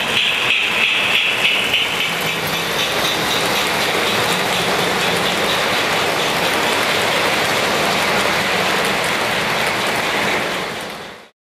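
Lionel O-gauge steam locomotive and passenger cars running past close by on three-rail tubular track: a rapid clicking whir as the locomotive passes in the first two seconds, then the steady rolling rattle of the cars' plastic trucks. The sound fades and cuts off suddenly near the end.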